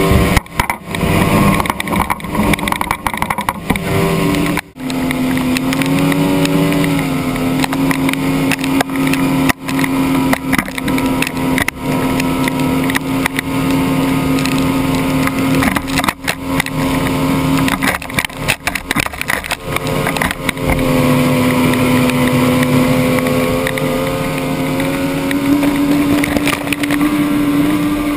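Yamaha 70 outboard motor running hard at planing speed, its note mostly steady with slight dips a few times and a fall near the end. Heavy rushing spray and wash from the hull and propeller run under it, with a few brief cutouts.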